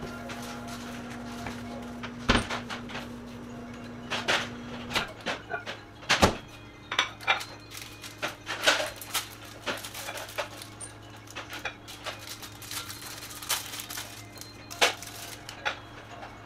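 Kitchen clatter: a plate and dishes set down and handled on the countertop, making irregular clicks and knocks, over a low steady hum.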